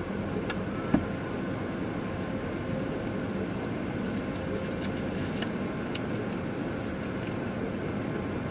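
Steady mechanical hum and low rumble heard from inside a car, with one sharp click about a second in.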